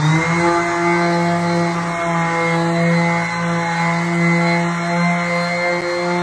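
Stanley SS30 five-inch random orbital sander running on solid wood with a 220-grit silicon carbide disc, the final sanding pass. It comes up to speed right at the start, then runs as a steady hum.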